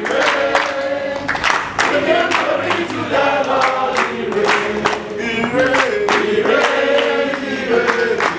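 A group of men and women singing a gospel praise song together, clapping their hands steadily on the beat.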